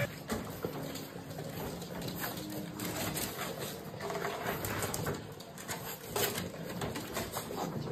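A litter of young puppies making soft, low whimpers and grunts, with paws scuffling on the floor.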